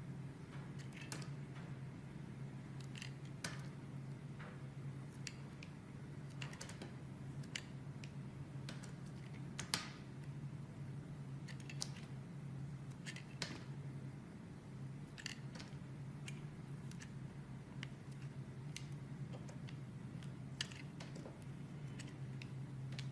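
A knife cutting into bar soap: irregular crisp snaps and crackles as the blade breaks through, over a steady low hum.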